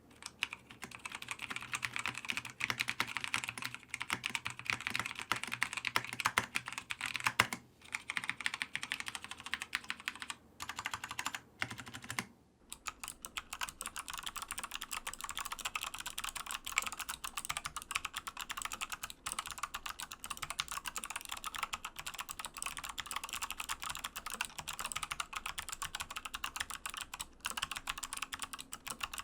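Continuous fast typing on a mechanical keyboard, a dense run of key clacks. About twelve seconds in the typing breaks off for a moment, then goes on with a slightly different background.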